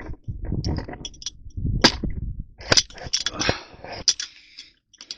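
Handheld camera being handled and set down close to the microphone: rustling and rumble with several sharp knocks and clatters.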